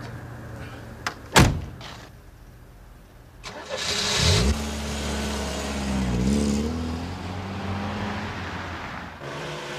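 A car door slammed shut, the loudest sound. A couple of seconds later the car's engine starts with a rising note, runs and revs as the car pulls away, then slowly fades.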